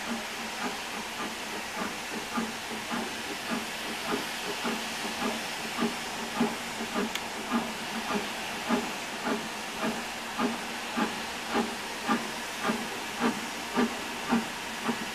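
BR Standard Class 4MT 4-6-0 steam locomotive No. 75078 working slowly, its two-cylinder exhaust chuffing in an even beat of a little under two a second that grows louder as it nears. Under the beat is a steady hiss of steam from the open cylinder drain cocks.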